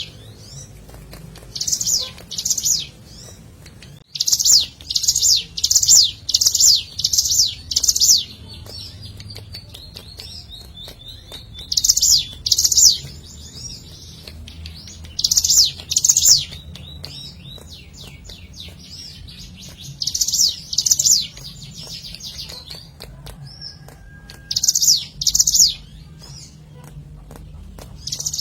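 Ciblek gunung, a prinia, singing: loud, sharp, high chirping notes in pairs, with one run of six spaced well under a second apart, a faint high trill between the phrases, and a low steady hum beneath.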